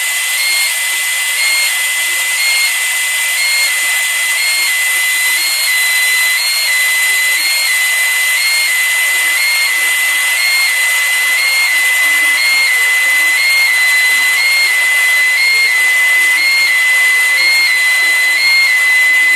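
Security fog generator discharging a jet of fog with a loud, steady hiss that grows slightly louder. Over it an alarm sounder gives a shrill, steady tone that steps slightly up and down in pitch about every second and a half.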